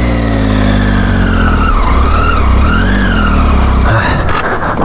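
Triumph Tiger 800's three-cylinder engine running as the motorcycle rides over a gravel track, its pitch sinking at first and then rising and falling with the throttle, under a steady rushing noise.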